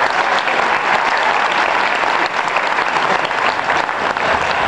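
Audience applauding steadily: dense, even hand-clapping.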